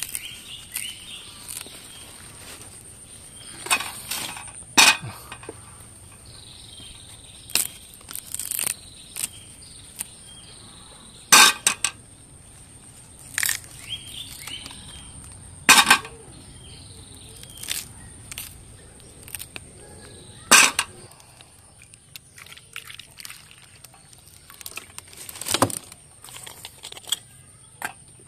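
Sharp snaps and knocks, one every few seconds, as green bananas are broken off the bunch, with rustling of dry banana leaves. Birds chirp faintly.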